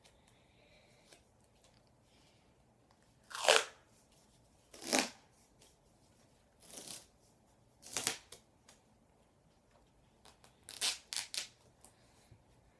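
Duct tape being pulled off the roll in short rips, about six of them a second or two apart, the last two close together near the end, as it is wrapped in layers around a PVC pipe.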